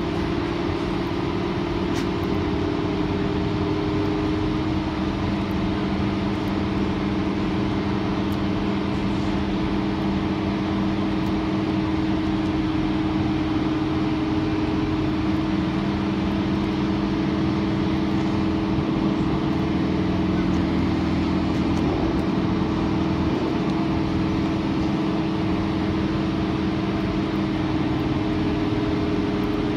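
Sydney Trains electric suburban train running, heard from inside its rear cab: a steady hum of several tones from motors and equipment over the rumble of the wheels on the track.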